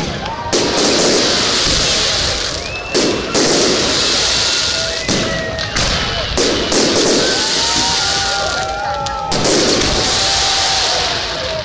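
Aerial fireworks shells bursting overhead about every three seconds, each burst followed by a couple of seconds of dense crackling from white crackling stars.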